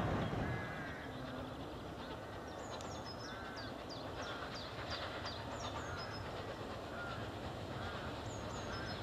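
Bulleid light Pacific steam locomotive approaching with its train, a low steady rumble, under birds calling: quick high falling chirps repeated many times, and lower arched calls about once a second.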